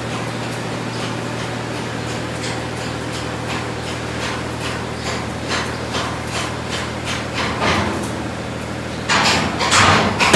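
Irregular metal-on-metal hammering in a workshop, the strikes coming faster and louder towards the end, over a steady low machine hum.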